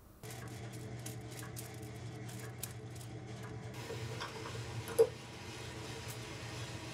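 Drum coffee roaster running with a steady low hum, with light ticking in the first few seconds and one sharp click about five seconds in.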